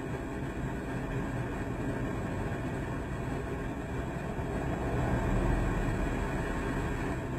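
Steady low engine and cab hum from a stopped vehicle, heard through a dash cam, with a deeper rumble swelling about five seconds in as another vehicle passes close in front.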